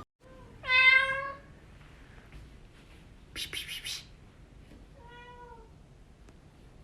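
A domestic cat meowing twice: a loud meow about a second in and a fainter one about five seconds in. Between them come four quick, high, hissy scrapes.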